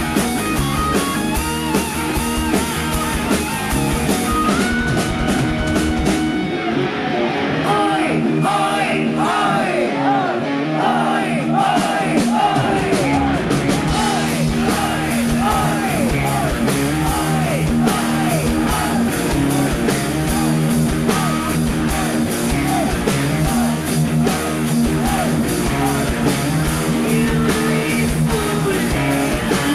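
Rock band playing live on an amplified stage, with electric guitars and singing. About six seconds in the band thins out to a sparser passage without the deep bass and cymbal sound, then comes back in full about six seconds later.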